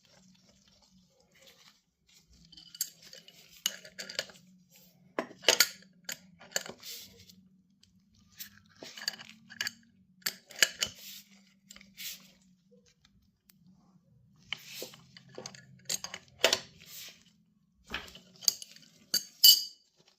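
Metal parts of a motorcycle chain riveting tool clinking and clacking as they are handled and fitted, in irregular clusters of sharp clicks, over a faint steady low hum.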